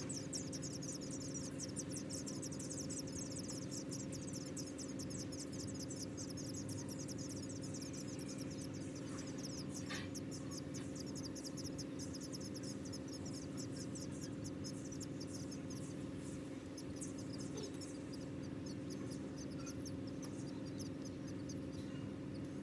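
Nestling songbirds begging with rapid, high-pitched chirps, dense and continuous through the first half and thinning out to scattered chirps later, over a steady low hum.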